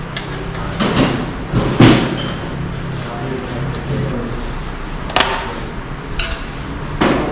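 Sharp workshop knocks and clanks, about five separate hits with the loudest near two seconds in, over a steady low hum.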